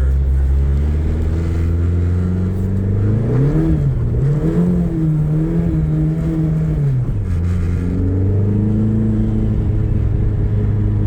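A 600-horsepower E85 1990 Eagle Talon's engine under way on a snowy road: the revs climb about three seconds in, hold with a slight wavering, then drop back about seven seconds in and run steady again, over constant road and wind noise.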